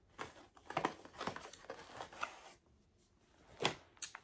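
Packaging rustling and crinkling as a hair bundle is pulled out of its small cardboard box: a handful of short rustles, with a louder one near the end.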